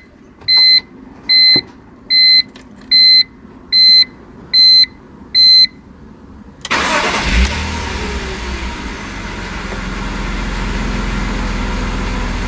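A car's electronic warning chime beeps about eight times, roughly once every 0.8 s. About two-thirds of the way through, the starter cranks and the BMW E46 325Ci's 2.5-litre straight-six fires on a hot restart. It then runs at an idle that climbs slightly, near 1000 rpm, as the hot-start idle surge sets in.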